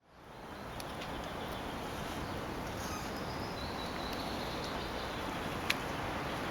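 Steady outdoor background hiss, with faint high chirps around the middle and a single sharp click a little before the end.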